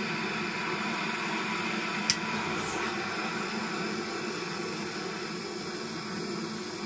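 Gas cartridge blowtorch flames hissing steadily while they heat a knife blade to hardening temperature. A sharp click about two seconds in, as a second torch is lit and joins the first.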